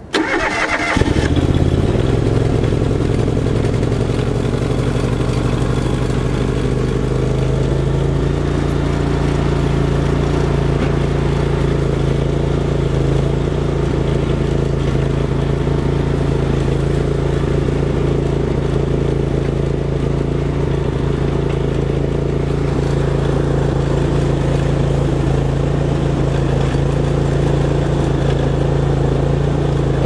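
John Deere GX345 lawn tractor's liquid-cooled V-twin engine starting, catching within about a second, then running steadily.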